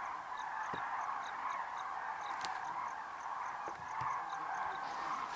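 A huge flock of common cranes trumpeting in flight: a continuous chorus of many overlapping calls.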